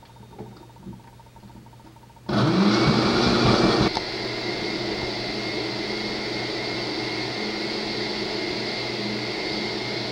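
Countertop blender switched on about two seconds in, chopping tomatoes, peppers and onions with a little water. It is loudest and roughest for the first second and a half while it breaks up the chunks, then settles to a steady whir as the mix turns to a purée.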